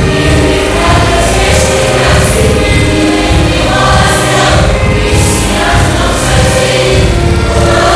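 Choir of many voices singing an upbeat song over a heavy pulsing beat.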